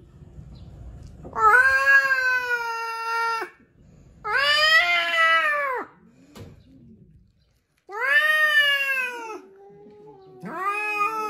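Domestic cat yowling: four long, drawn-out calls about a second and a half each, each sliding up at the start and dropping at the end. A lower, steadier moan runs beneath the last call.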